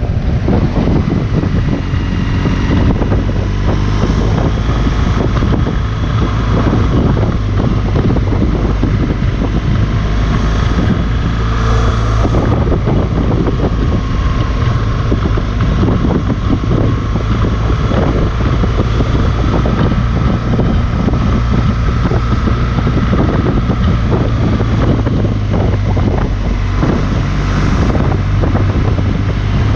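BMW R 1200 GS boxer-twin engine running steadily while the motorcycle is under way, with wind buffeting the microphone.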